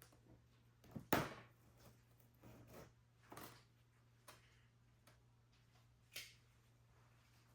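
Faint scattered handling noises from a cardboard box being opened: short scrapes and knocks, the loudest about a second in, over a faint steady low hum.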